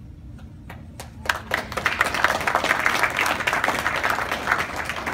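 Audience applauding: a few scattered claps, then the whole room joins in about a second in.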